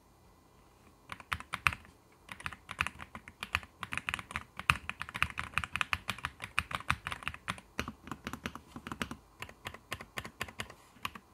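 Typing on a JamesDonkey A3 3.0 gasket-mounted mechanical keyboard with TTC Steel V2 switches and PBT keycaps. A run of rapid keystrokes starts about a second in, with brief pauses along the way.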